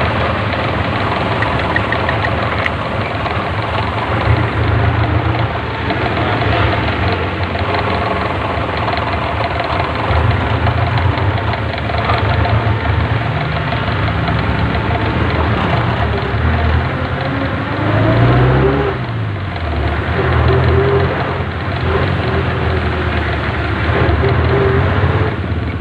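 A vehicle's engine running steadily while driving through slow street traffic, revving up and dropping back once about three-quarters of the way through.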